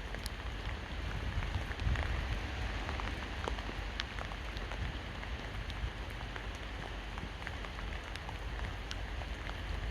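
Steady rain falling, with many separate drops striking close by, over a low rumble.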